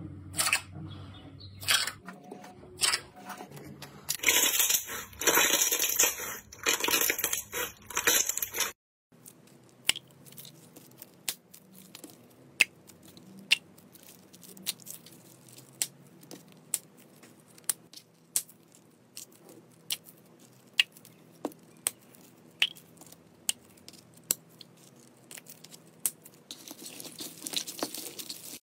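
A hand squeezing and pressing glossy slime: sticky squelching and crackling, densest about four to nine seconds in. After a cut, scattered sharp clicks and light plastic crinkling as small bags of jelly slime are handled, with a rustle building near the end.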